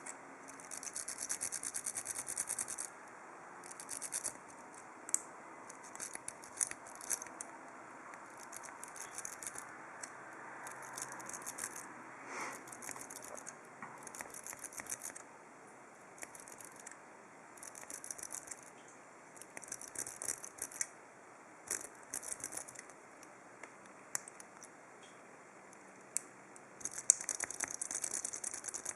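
Light metal scraping in repeated short spells of a second or two, with a few sharp clicks: a thin shim and a pick working inside a cheap 5-pin brass padlock, the shim worked in between the core and the lock body while the pins are lined up.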